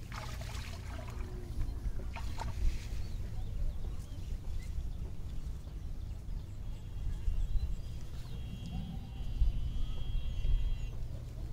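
Wind rumbling on the microphone over shallow floodwater, with light splashes and dripping as a cast net is gathered out of the water by hand.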